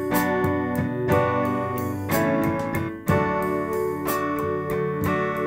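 Acoustic guitar strumming chords, with a fresh strum about once a second.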